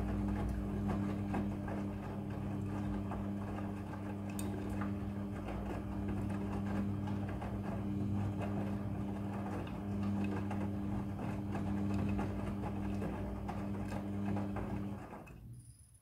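Midea front-loading washing machine running a wash: the drum motor's steady hum under the splash and tumble of wet clothes. Near the end the motor and drum stop abruptly and the sound falls away.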